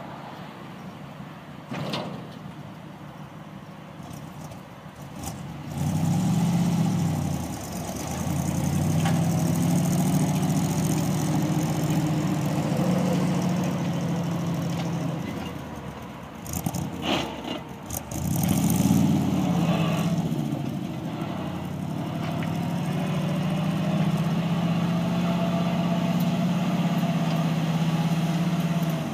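1955 Ford F700 dump truck's V8 engine idling low, then revving up about six seconds in as the truck pulls away and running steadily. A few sharp knocks come just past halfway, followed by a second rise and fall in engine pitch and steady running again.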